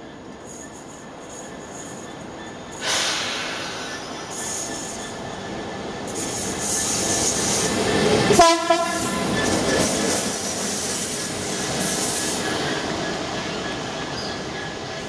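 A DB Schenker Class 66 diesel locomotive, its two-stroke V12 running, approaches as a light engine and sounds its horn. A sudden loud onset about three seconds in fits the horn. It passes loudest about eight seconds in, with wheel noise on the rails, then fades as it draws away.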